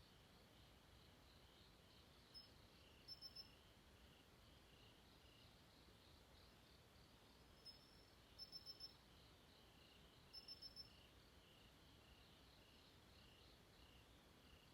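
Faint night ambience: crickets chirping in short quick runs of three or four, a few times, over a fainter steady pulsing insect chorus and low hiss.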